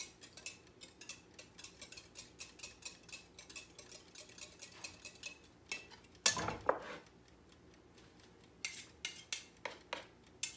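A utensil stirring an egg and milk mixture in a glass, clinking rapidly against the side about four times a second. About six seconds in there is one loud knock with ringing, followed by a few scattered clinks near the end.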